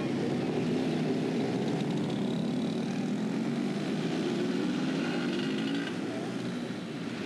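A tuk-tuk's small engine running steadily as it moves through city street traffic, with the general rumble of the traffic around it, easing off slightly near the end.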